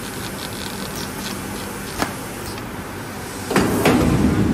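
An air-bubble film slitting machine (PRTC-1600) running steadily with a low hum and light rapid ticking. There is one sharp click about two seconds in, and a louder rush of noise from about three and a half seconds in.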